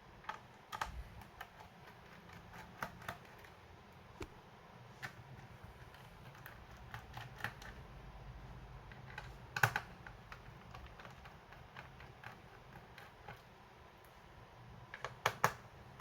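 Irregular small clicks and taps of hands and a tool working on a laptop's plastic bottom case, with the sharpest click about ten seconds in and a quick run of clicks near the end.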